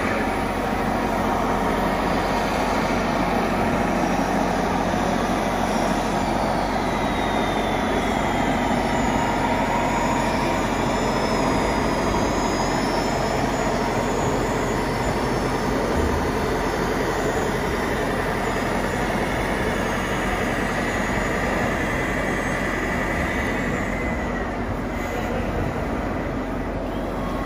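Radio-controlled scale construction models at work: electric-motor whines that rise, hold and fall away, over a steady background din.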